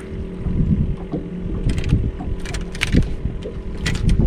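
Wind buffeting the microphone and water lapping against a small fishing boat's hull, with several short, sharp noises as a popping-cork rig is reeled in and lifted out of the water.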